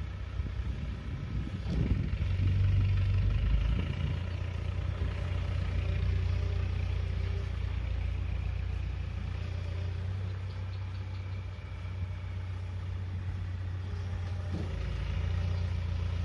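Land Rover Defender 110's 300Tdi 2.5-litre four-cylinder turbo-diesel running as the truck is manoeuvred slowly across grass, a low steady rumble that swells about two seconds in and eases off after about four seconds.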